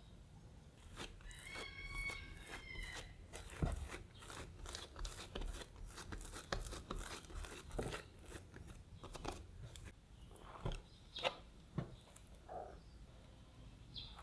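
Silicone pastry brush dabbing water on dough, then hands rolling the filled dough into a log on a wooden board: soft rustling and light taps. There is a short squeak about two seconds in and a few sharper clicks near the end.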